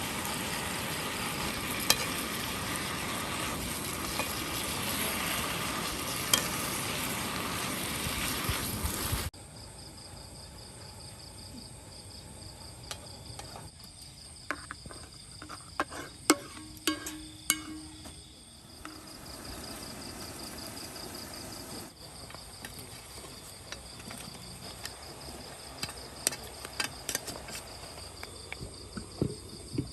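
Food sizzling loudly in a hot pan for about nine seconds, then a sudden cut to quieter sounds: a steady high chirring of insects with scattered light clinks of utensils on cookware.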